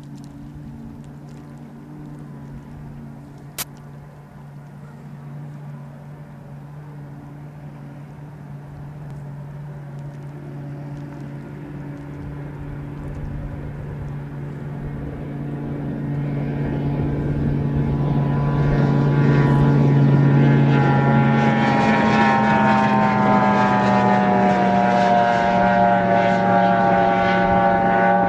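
Racing RIB's outboard motor running flat out at high speed, a steady engine note that grows much louder as the boat approaches and is loudest for the last eight seconds or so.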